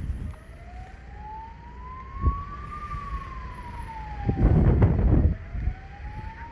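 Emergency-vehicle siren on a slow wail, rising for about two and a half seconds, falling, then rising again. A loud low rumble on the microphone about four and a half seconds in.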